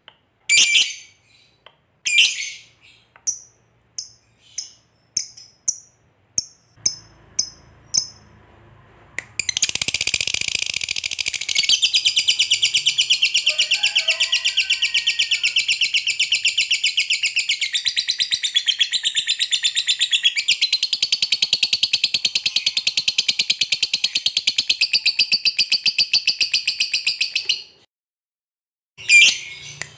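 Lovebird giving short, high chirps for the first nine seconds or so, then breaking into one long, rapid, unbroken chattering trill of about eighteen seconds: the long 'ngekek' prized by lovebird keepers. The trill cuts off suddenly, and a couple more chirps follow near the end.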